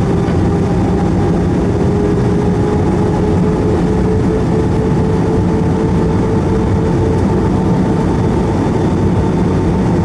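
Airbus A320 cabin noise heard from a window seat: a loud, steady rush and rumble of engines and airflow, with a whining engine tone that slowly rises in pitch throughout.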